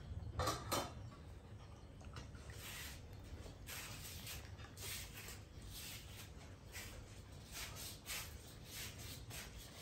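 Faint, scattered small clicks and scrapes of a spoon in a plastic cup of coconut meat as a baby monkey is spoon-fed and eats from it, two clearer taps about half a second in.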